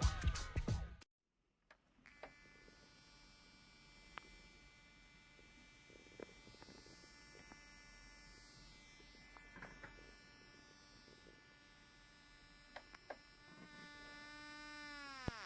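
Faint buzzing whine from the speakers of an RCA 32LA30RQD LED TV: a steady pitched hum with many overtones, with a few faint clicks. It grows a little louder, then slides down in pitch and cuts off near the end. This noise is the speaker fault that the TV is being repaired for.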